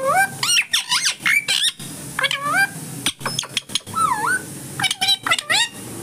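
Indian ringneck parrot chattering in short calls that glide up and down in pitch, five or six of them spread through, mixed with many sharp clicks.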